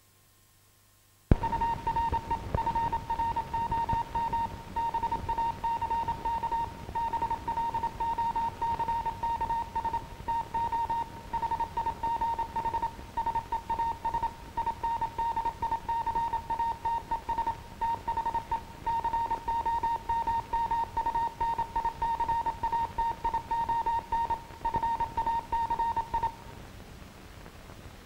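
Morse code: a steady high beep keyed on and off in rapid irregular dots and dashes. It starts about a second in and stops a little before the end, over the crackle and hiss of an old optical film soundtrack.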